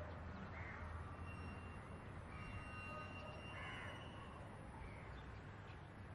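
Crows cawing, about four harsh calls a second or so apart, over faint outdoor background with a few thin high bird notes.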